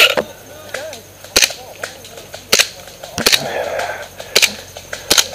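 Airsoft gun firing single shots: about five sharp cracks, roughly a second apart.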